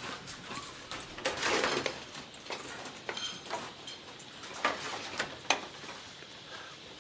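Kitchen clatter: scattered clicks and knocks of pans and utensils, with a brief rush of noise about a second and a half in.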